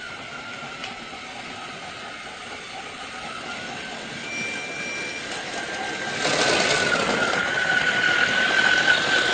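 Battery-powered toy train running: a steady, slightly wavering motor whine over the rattle of its gears and wheels, growing louder about six seconds in.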